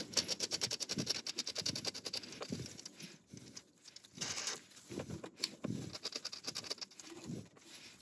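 Clutch cable adjuster being screwed down its threaded end by hand, giving a quick run of small plastic clicks over the first few seconds, then scattered scraping and rubbing of a glove on the plastic.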